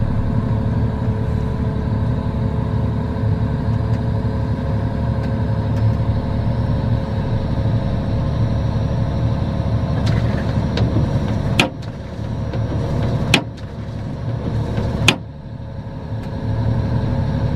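John Deere 1270E harvester's diesel engine running steadily as the machine drives forward, heard inside the cab. Late on, three sharp clicks come about a second and a half apart, each followed by a brief drop in the engine sound.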